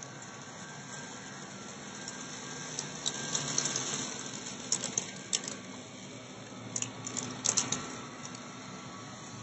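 Upright vacuum cleaner running on carpet, with clusters of sharp crackling clicks as grains of rice and bath salt rattle up through it, three times from about three seconds in.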